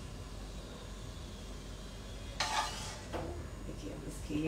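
A metal spoon scraping and knocking against a cooking pan, once clearly a little over halfway through and twice more faintly, over a low steady kitchen background.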